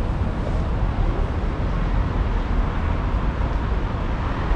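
Steady outdoor background noise with a heavy low rumble and no distinct events.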